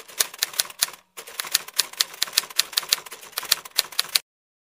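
Typewriter keystroke sound effect, a quick run of sharp clicks at about six a second, typing out on-screen text. There is a short break about a second in, and the clicks stop abruptly near the end.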